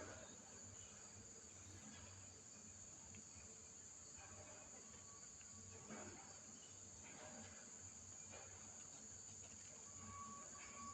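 Faint, steady chorus of crickets.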